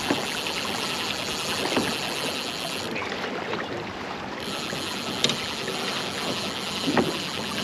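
Steady rush of water and wind around a fishing kayak on open water, with a few sharp knocks about two, five and seven seconds in.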